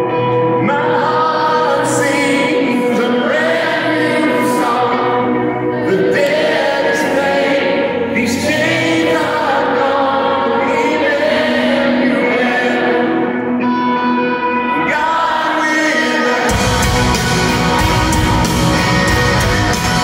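Live band music heard from the crowd: a male lead vocalist sings a slow melody over sustained chords. About three-quarters of the way through, the full band comes in with drums and electric guitar.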